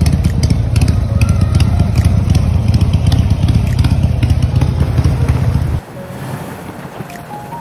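Harley-Davidson V-twin motorcycle engine idling with a deep, rapidly pulsing exhaust rumble, which cuts off suddenly about six seconds in to a much quieter background.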